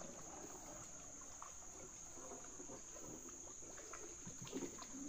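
Steady high-pitched insect drone from the surrounding swamp forest, with faint water sounds from a canoe paddle.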